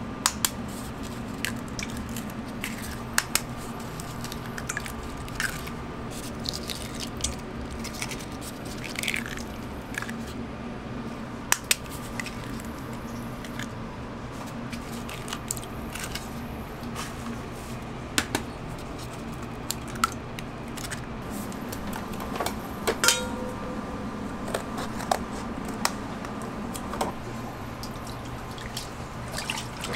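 Eggs cracked one after another against a stainless steel bowl, short sharp taps and cracks with small wet drips, over a steady background hum. Near the end milk is poured from a carton into a large steel mixing bowl.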